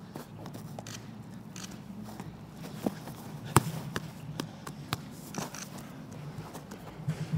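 A football being juggled: irregular sharp taps of the ball off feet and body, the loudest about three and a half seconds in, with a few brief scuffs on artificial turf and a steady low hum behind.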